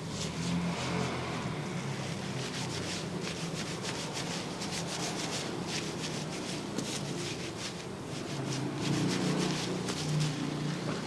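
Fingertips scrubbing shampoo lather through wet hair on the scalp: a continuous close-miked rubbing and squishing of foam, full of fine crackles.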